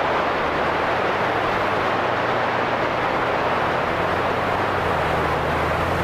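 CB radio receiving an open transmission with no voice: a steady rush of hiss cut off above about 4 kHz, over a faint low hum.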